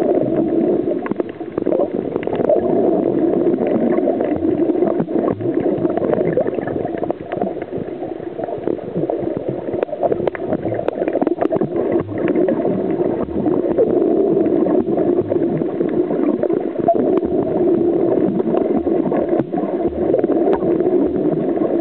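Muffled underwater noise picked up by a camera held below the surface over a coral reef: a steady low rushing of water with many scattered faint clicks.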